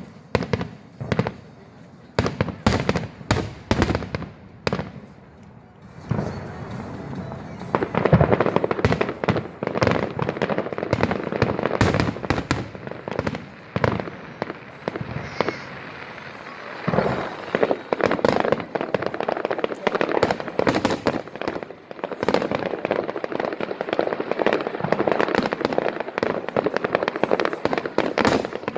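Fireworks display: a quick series of separate sharp bangs, then a dense barrage of crackling and bangs, with a brief lull about sixteen seconds in.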